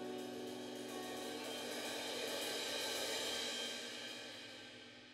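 Live rock band holding a chord: sustained guitar and bass notes with a cymbal roll that swells and then fades away, the song's ending ringing out.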